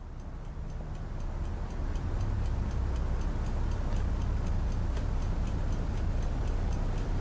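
Clock ticking steadily, under a low rumble that swells over the first two seconds and then holds.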